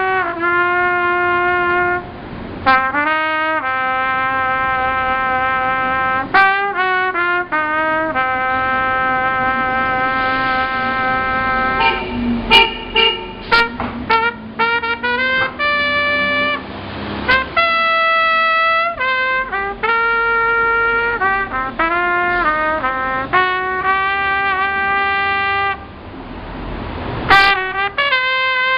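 A trumpet played solo: a melody of long held notes and runs of quick short notes, with brief breaks for breath about two seconds in and again near the end.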